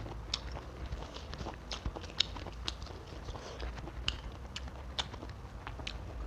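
Close-miked mouth sounds of chewing raw leafy greens with fried fish: irregular sharp crunchy clicks and smacks, with some rustling of leaves handled by hand.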